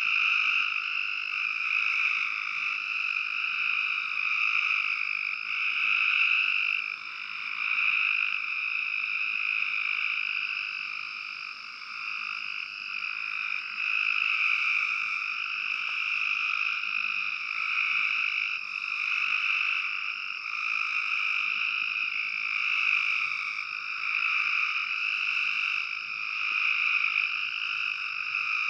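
Full chorus of Cope's gray treefrogs: many males trilling at once in a continuous, high-pitched din that swells and eases every second or two.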